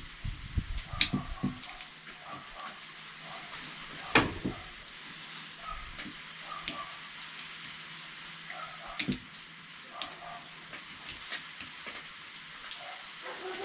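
Small clicks and knocks of a DWT angle grinder being handled while not running, as a new carbon brush is worked into its brush holder. The sharpest click comes about four seconds in and another about nine seconds in, over a steady background hiss.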